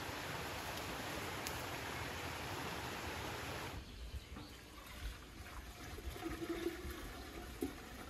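A steady rushing noise that stops abruptly about four seconds in. It gives way to water being poured from a metal jug into a samovar, a quieter, uneven trickle.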